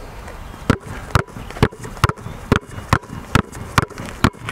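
Two basketballs dribbled together on asphalt, both bouncing at once at about waist height and moved side to side. The bounces start a little under a second in and keep an even rhythm of about two a second.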